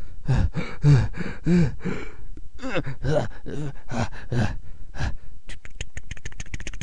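A man's voice making a run of short, strained grunts and gasps of effort, each rising and falling in pitch, voicing someone hauling themselves up a wall. It gives way about five seconds in to a fast rattling series of clicks.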